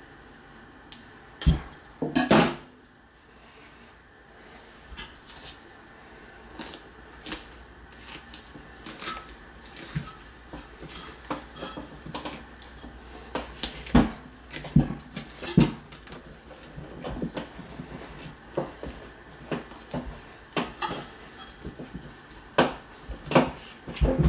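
A knife and a rabbit carcass knocking and scraping against a stainless steel sink draining board: scattered clicks and clanks, with the loudest knocks about two seconds in, around the middle and near the end.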